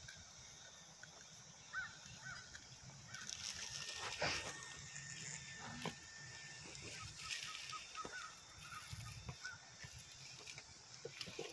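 Faint distant bird calls, with a few light knocks and rattles from an RC monster truck being turned over in the hands, the loudest about four seconds in.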